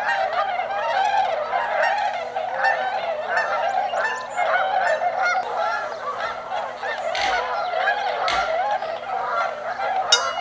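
A large flock of tundra swans calling all at once: a dense, continuous chorus of many overlapping calls.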